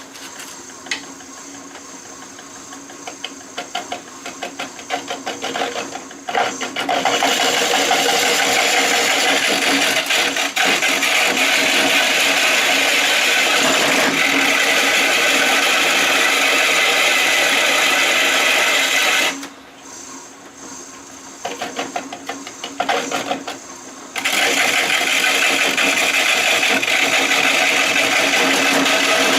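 A half-inch bowl gouge cutting into a maple burl spinning on a Shopsmith lathe: long stretches of loud, steady shearing noise while the tool is in the cut. These are broken twice, at the start and about twenty seconds in, by quieter spells of rapid ticking as the gouge only touches the wood.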